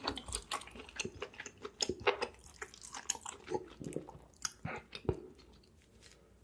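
Close-miked chewing of food, a dense run of wet, irregular mouth clicks that tapers off about five seconds in.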